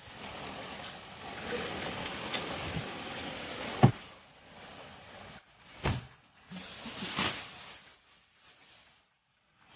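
Food-packing handling noises: a steady hiss, a sharp knock about four seconds in and another about two seconds later, then a brief rustle of a plastic carrier bag being handled.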